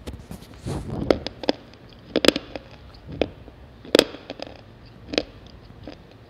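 Slate pencils being bitten and chewed close to the microphone: sharp, brittle crunches about once a second, the loudest a little after two seconds in and again at four seconds.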